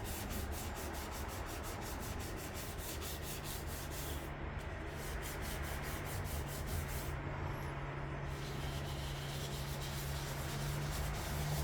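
Sandpaper rubbed by hand over the primed hood of a 1958 Johnson outboard motor: a steady rasping scrub, sanding the primer down to flatten small divots before paint. A steady low hum comes in about three seconds in.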